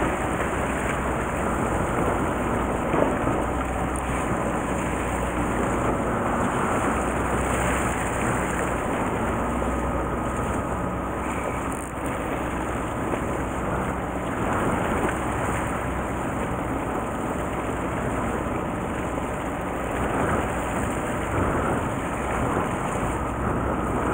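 Steady sound of a fishing boat at sea: the engine running low and even under the wash of water along the hull.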